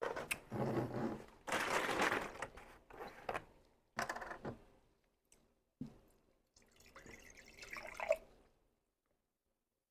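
Close-miked eating: wet chewing and smacking in a series of irregular bursts, with a short rising mouth sound near the end.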